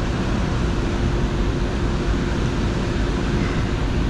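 Steady wind and water noise with a constant low hum throughout.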